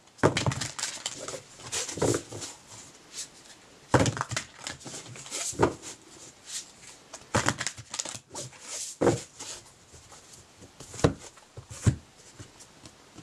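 A deck of oracle cards being shuffled by hand: irregular slaps and rustles of the cards, a few of them sharper and louder.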